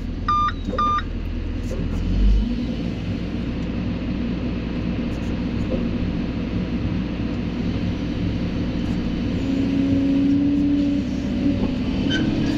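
Excavator's diesel engine and hydraulics running, heard from inside the cab while the machine swings toward a dump truck. Two short electronic beeps come near the start, and the deepest part of the engine drone drops about two seconds in.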